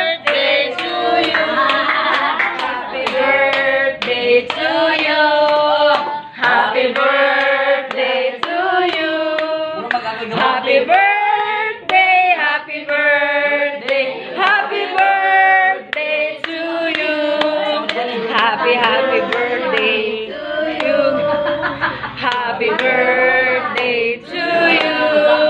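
Singing that continues throughout, with hand clapping.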